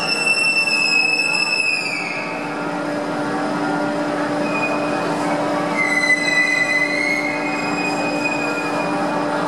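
Tamar-class lifeboat being winched up the boathouse slipway, its hull scraping on the slipway with a metallic squeal. The squeal slides down in pitch about two seconds in, and a second squeal follows from about five to seven seconds in, over a steady hum.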